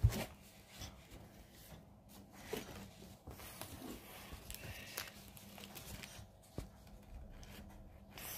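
Handling of a printed cross-stitch canvas: a thump at the start, then soft rustles and a few small clicks.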